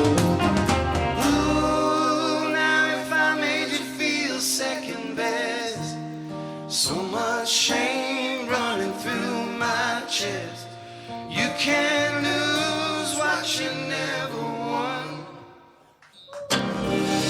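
Live rock band with several voices singing held harmonies over sustained chords; the heavy low end drops out about two seconds in. Near the end the music dies away almost to silence for a moment, then the full band crashes back in.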